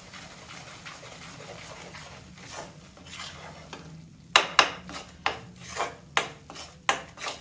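Spatula scraping and stirring in a large kadhai of flour roasting in ghee with dry ginger powder. Faint at first, then from about four seconds in a run of sharp scraping strokes, two or three a second.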